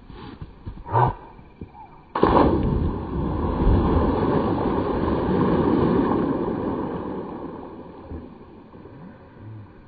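A capybara plunging into a lake: a sudden heavy splash about two seconds in, then several seconds of water churning and sloshing that slowly dies away. A short, sharp sound comes about a second in, just before the plunge.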